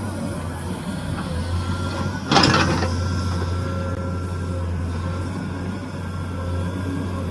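Excavator's diesel engine running steadily, with a short burst of hiss about two seconds in.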